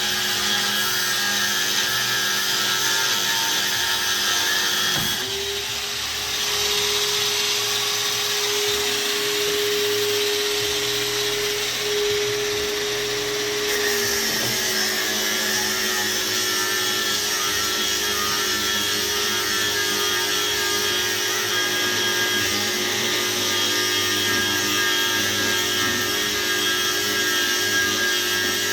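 Electric angle grinder running steadily with a high whine. About five seconds in, its pitch steps up a little and holds, then drops back about fourteen seconds in.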